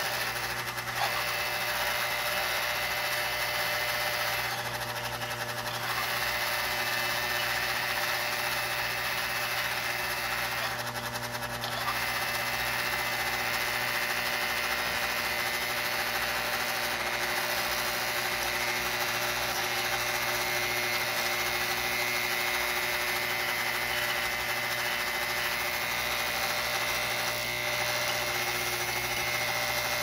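American Flyer 771 Cattle Farm accessory's solenoid-driven vibrator buzzing steadily, shaking the platform so the toy cows shuffle along the ramp toward the cattle car.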